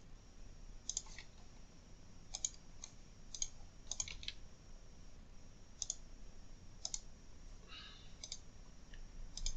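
Computer mouse clicking: about ten sharp clicks at irregular intervals, many heard as a quick press-and-release pair, with a brief soft rustle about eight seconds in.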